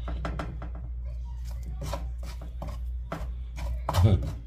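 Wooden spoon scraping and knocking against a frying pan while stirring a crumbled meat mixture: irregular clicks and scrapes, with a louder knock about four seconds in. A steady low hum runs underneath.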